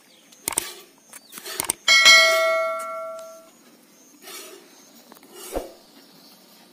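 A steel milk pot clangs about two seconds in, after a few lighter knocks, and rings out for about a second and a half. Soft spurts follow as the cow is milked by hand into the pot.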